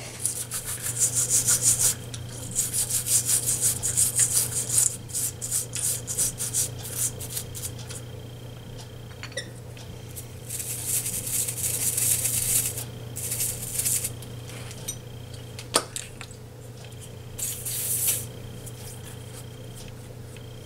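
Stiff toothbrush scrubbing a WD-40-soaked metal caster swivel plate and bearing race, fast back-and-forth strokes coming in spells with short pauses, to clean out metal filings. One sharp click about three-quarters of the way through, over a steady low hum.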